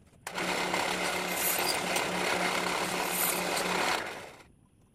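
A handheld power tool runs for about four seconds with a steady motor hum under a dense grinding noise, starting abruptly and dying away.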